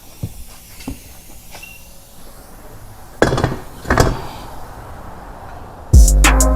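Light metallic clinks and two sharp knocks of metal wheel parts or tools being handled. Near the end, background music with a heavy drum beat comes in.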